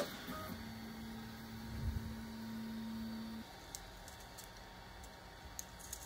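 Light clicks and rattles of hollow 3D-printed PLA test pieces being handled, with a faint steady hum that cuts off about three and a half seconds in.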